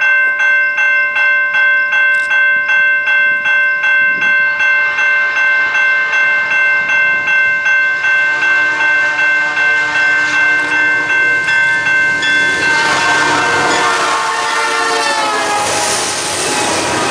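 A railroad crossing bell ringing in a steady rhythm while an approaching freight train's locomotive air horn sounds, growing louder. Near the end the train reaches and passes close by: the horn's pitch drops as it goes past, and the locomotives and cars rumble over the rails.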